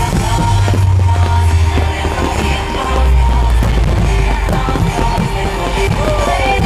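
Loud rock music with strong bass notes and singing, playing steadily.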